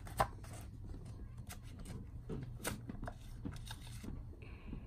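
Handling of a hardcover Blu-ray collection book as its pages are turned: scattered light taps and clicks of board and paper, the sharpest about a quarter of a second in.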